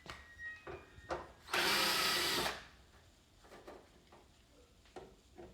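Electric screwdriver whirring for about a second as it backs a screw out of the TV's back panel. A few light clicks and knocks come just before.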